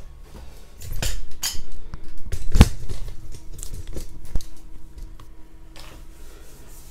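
A run of sharp metallic clicks and knocks from hands working the Mini's steel door and A-panel, the loudest about two and a half seconds in, tailing off after about four and a half seconds.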